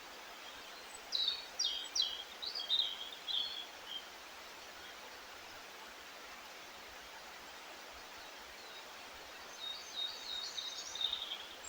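A songbird singing two short phrases of quick high chirps, one about a second in and one near the end, over a steady outdoor hiss.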